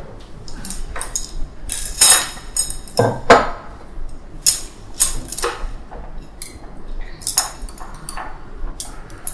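Tableware clinking at a breakfast table: chopsticks and spoons tapping against china bowls and plates, with glasses set down, in a string of separate light knocks and short rings, the loudest about two and three seconds in.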